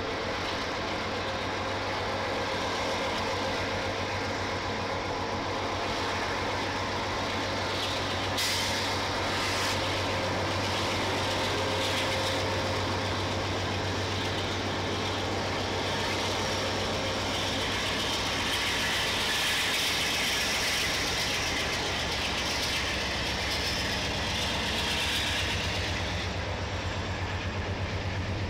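Norfolk Southern freight train rolling past: a diesel locomotive's engine runs with a steady low hum while the tank cars and boxcars rumble over the rails. A brighter hiss rises over the rumble for several seconds in the second half.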